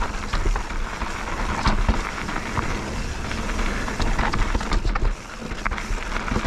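Bird Aeris 145 full-suspension mountain bike riding down a rough trail: a steady rush of tyres on gravel and rock with frequent rattles and knocks over a low rumble.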